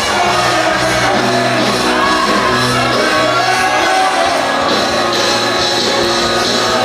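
Music with singing voices over a band, with steady bass notes, loud throughout.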